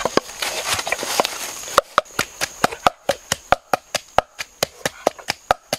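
Quick, even sharp knocks of food being worked with a tool, about four to five a second. Before them, a rustling hiss cuts off abruptly a little under two seconds in.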